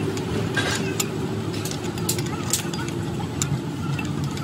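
Steady low engine-like rumble with scattered sharp clicks and taps.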